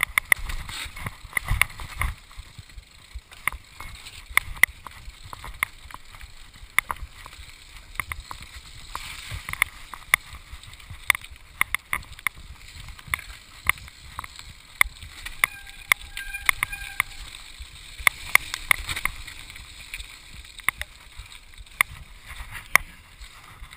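Mountain bike descending a rough, wet forest trail: rapid irregular knocks and rattles of the bike and its handlebar-mounted camera over roots and bumps, over a steady rush of tyre and wind noise.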